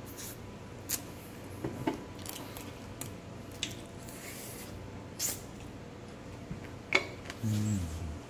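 Someone eating crispy fried chicken wings: scattered small crunches and mouth clicks, a few seconds apart. There is a short low voice sound near the end.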